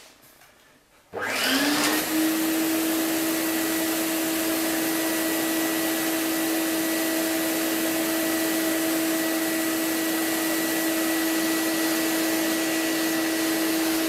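Hitachi wet/dry vacuum switched on about a second in: its motor spins up with a short rising whine, then runs steadily with a loud rush of air drawn through the hoses and a cyclone dust separator.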